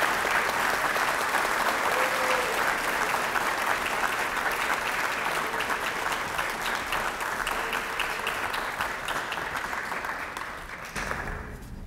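Audience applauding: dense clapping that slowly thins, then dies away about eleven seconds in.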